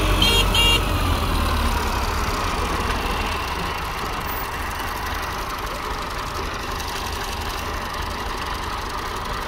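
Massey Ferguson tractor diesel engines pulling against each other in a tug-of-war, heavy and loud at first, then easing within about two seconds to a steady, lower running rumble.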